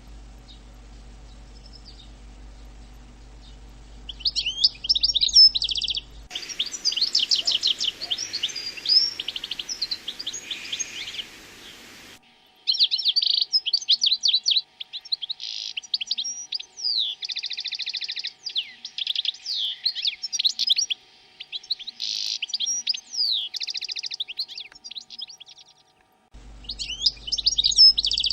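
Small songbird singing: rapid high chirps and trilled, warbling phrases in quick succession with brief gaps. A low steady hum sits under the first few seconds and near the end.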